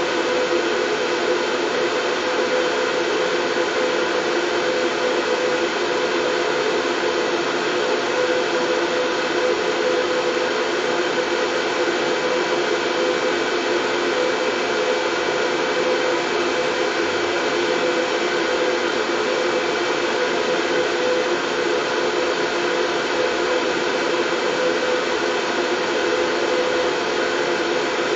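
Continuous white noise: an unchanging hiss with a steady hum running through it.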